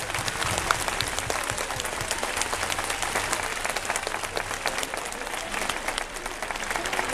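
Crowd applauding: dense, steady clapping with no break.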